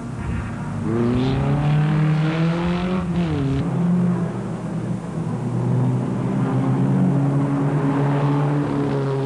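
Single-seater racing car engine revving up, its note rising for about two seconds, then dropping sharply about three seconds in as the driver lifts or changes gear, before settling into a steady note that slowly climbs again.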